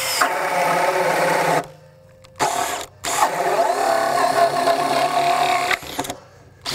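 Makita 40V XGT GPH01 brushless hammer drill-driver on high speed, driving a 2-9/16-inch bore bit into a wooden board under heavy load. The motor runs with a whine for about a second and a half, stops, gives a short burst, then runs for nearly three seconds more before stopping.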